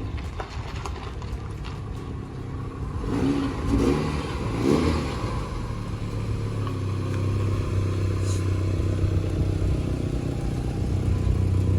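Car engine running, revving briefly a few seconds in, then settling into a steady idle.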